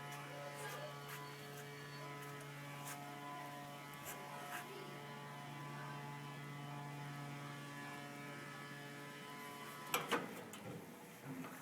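Electric barbecue rotisserie motor humming steadily. About ten seconds in, the hum cuts off and two sharp knocks follow.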